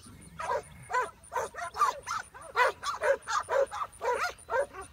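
Working cattle dog barking at cattle to bunch them: a rapid string of short, yipping barks, about three a second.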